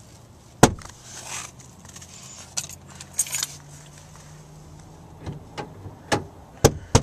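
A bunch of keys jangling and clinking, with sharp clicks scattered through; the loudest comes about half a second in and several come near the end. A faint low steady hum runs underneath.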